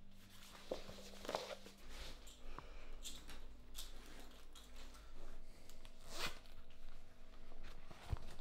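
A handbag's zip being pulled open in several short strokes, with rustling and small knocks as its contents are rummaged through.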